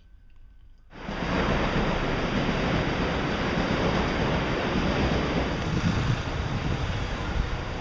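A steady rushing din of outdoor night-street noise with a heavy low rumble, typical of wind on the microphone. It cuts in suddenly about a second in, after near silence.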